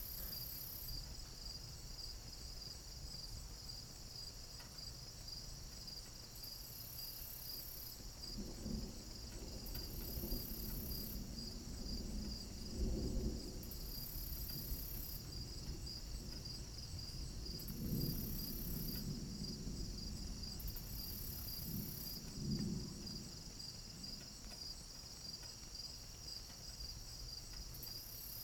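Crickets chirping steadily in a fast, even pulse, with a higher insect buzz that switches on and off every few seconds. Low rumbles come and go several times in the middle.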